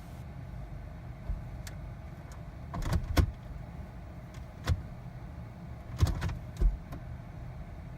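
Jeep's automatic gear selector being jiggled between Neutral and Park: a series of clicks and clunks, the sharpest about three seconds in and again around six seconds, over a steady low rumble. This is being done to make the transmission control module register Park so the engine will restart.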